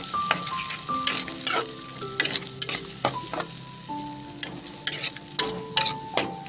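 Fish innards sizzling as they fry in oil in a metal pan, with a utensil scraping and knocking against the pan as they are stirred, in a dozen or so irregular sharp strikes.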